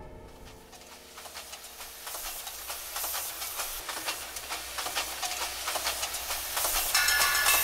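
Train on the rails: a hiss that builds steadily, full of irregular clacks and rattles of wheels over the track. Near the end a high metallic squeal joins in, as of wheels on a curve.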